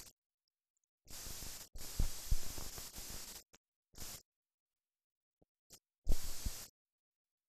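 Bursts of static hiss and crackle, each cutting off abruptly into dead silence. The longest burst runs from about one to three and a half seconds in and carries a few low pops. A short burst follows about four seconds in, and another opens with a sharp pop about six seconds in.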